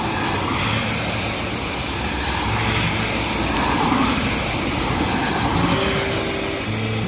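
Gusty wind from Hurricane Milton's approaching winds, rushing steadily and buffeting the microphone, swelling a little about four seconds in.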